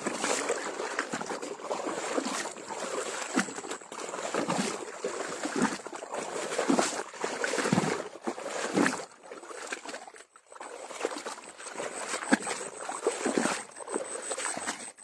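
Water sloshing and dribbling, with irregular knocks and rustles, as an eel trap is hauled out and handled.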